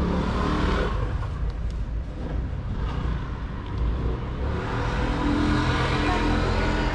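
Motor vehicle engine rumbling, growing louder about four and a half seconds in as it comes closer.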